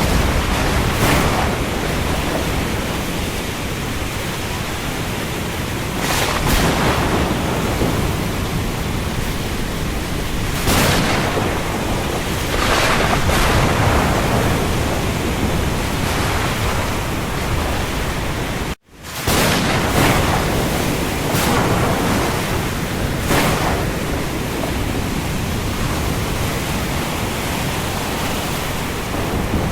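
Steady heavy rain falling on the open sea, a dense even hiss with brief louder surges every few seconds like waves breaking. The sound cuts out for a split second about 19 seconds in, then resumes.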